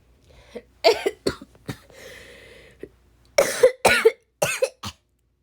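A person coughing in a harsh, hacking fit, blamed on cigarettes: three coughs about a second in, a short rasping breath, then a quicker run of four or five coughs near the end.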